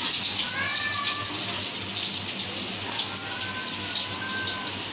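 Hot oil sizzling steadily with a fine crackle as pakoras deep-fry.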